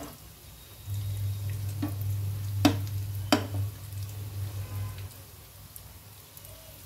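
Bread rolls deep-frying in hot oil, sizzling and bubbling, as a perforated steel skimmer turns them and knocks against the pan a few times. A steady low hum runs from about a second in until about five seconds in.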